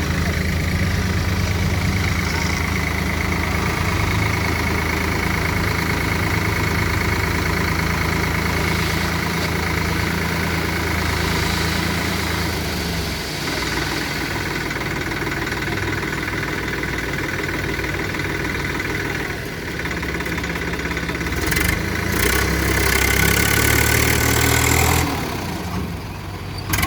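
Heavy diesel engine running steadily, from the backhoe loader or the tractor it is pushing, with its note and load changing about halfway through and again near the end.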